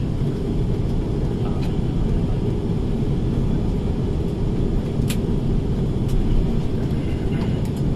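Cabin noise of an Airbus A330-343E taxiing: a steady low rumble from the Rolls-Royce Trent 700 engines at idle and the wheels rolling, with a few faint clicks.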